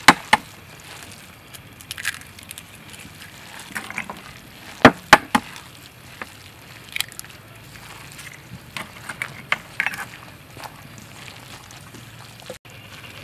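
A plastic-gloved hand squishing and kneading a wet minced-pork and glass-noodle filling in a stainless steel bowl, with scattered sharp clicks and knocks, the two loudest about five seconds in.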